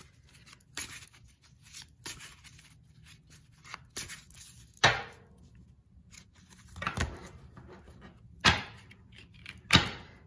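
Tarot deck being hand-shuffled: the cards are swished and tapped together in about seven separate strokes, roughly one every second or so, the loudest about five seconds in.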